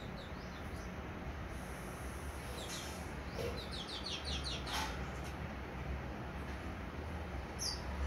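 House sparrows chirping: a few short chirps near the start and a quick run of about half a dozen chirps halfway through, over a steady low background hum.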